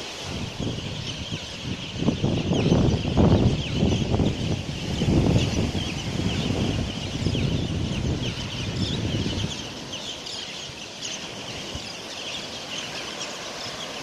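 A large flock of dark terns calling all at once, a dense chatter of many short, falling squawks. A low rushing noise swells beneath it about two seconds in and eases off after about nine seconds.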